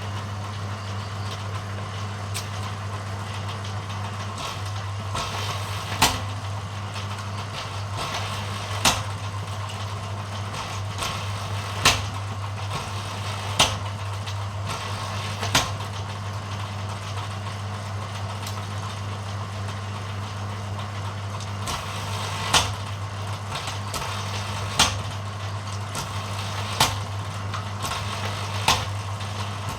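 Bamboo thinning machine running with a steady low hum, with about nine sharp clacks every two to three seconds and a longer pause in the middle.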